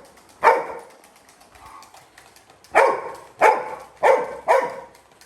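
Labrador retriever puppy barking: one bark about half a second in, then four quick barks in a row in the second half.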